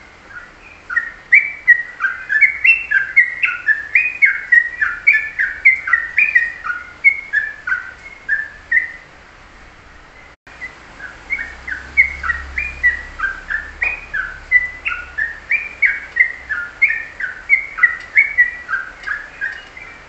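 A caged songbird singing long, fast strings of whistled notes that rise and fall, about three notes a second, in two runs of roughly nine seconds with a short pause between them.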